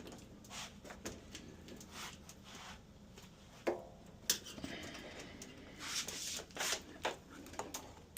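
Irregular small clicks, taps and rustling of objects being handled, with two sharper clicks about four seconds in and a burst of rustling near the end.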